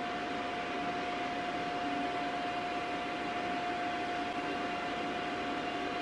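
Gas-fired foundry furnace burner and blower running: a steady rushing noise with one constant whining tone.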